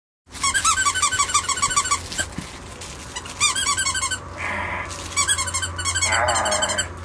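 Plush squeaky dog toy squeezed rapidly over and over: quick, high squeaks in several bursts with short pauses between.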